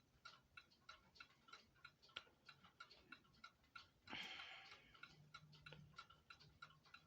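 Kienzle mantel clock movement ticking steadily and faintly. A brief soft rustling hiss comes about four seconds in.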